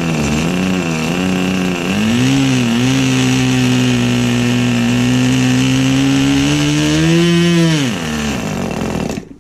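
O.S. Max 25 FP two-stroke glow-plug model aircraft engine running with its propeller spinning. Its speed wavers for the first couple of seconds, then holds steady, rises briefly near the end, and falls away as the engine winds down and stops.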